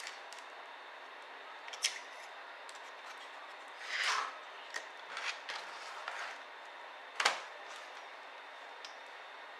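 Handling noises from laptop disassembly: a few sharp clicks, the loudest about seven seconds in, and short scraping sounds around the middle over a steady hiss.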